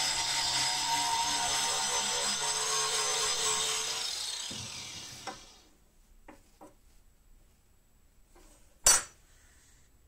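Angle grinder grinding a clamped high-speed-steel saw-blade knife blank, a steady high grinding noise that dies away about four to six seconds in. A few light clicks follow, then one sharp knock near the end, the loudest single sound.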